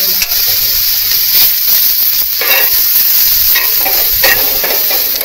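Food sizzling as it fries in a hot pan, a steady hiss, with a utensil stirring it and clinking or scraping against the pan a few times.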